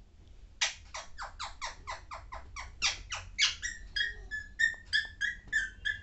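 Young Alexandrine parakeet calling: a rapid run of harsh, falling squawks, about five a second, for some three seconds, then a string of shorter, higher chirps.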